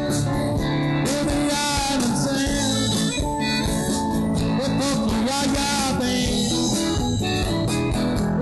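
Live band playing: guitars, bass and drums with steady cymbals, the guitar lines bending in pitch.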